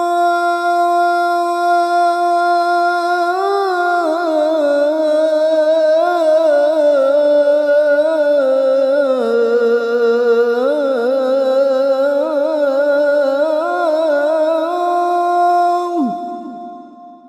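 A man's voice chanting the Islamic call to prayer (adhan) into a microphone: one long held note with wavering melismatic ornaments that sink lower in the middle and climb back up. It breaks off about sixteen seconds in with a short falling slide, and an echo fades after it.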